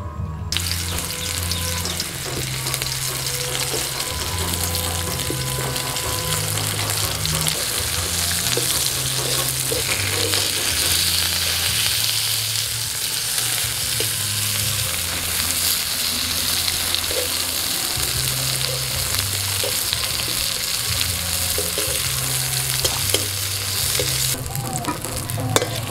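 Onion rings sizzling in hot oil in a karahi, starting about half a second in, with a metal spatula now and then scraping and turning them.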